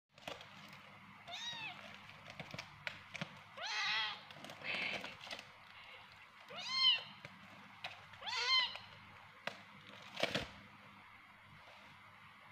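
Young kittens mewing: about five short, high-pitched calls that rise and fall in pitch, spread over several seconds. Light clicks run between the calls, and there is one sharp knock about ten seconds in.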